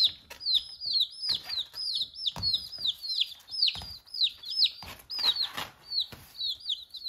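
Baby chicks peeping over and over, each peep a high note sliding down, about two a second. Kittens' claws scrape and rustle on the playpen's mesh and floor a few times between the peeps.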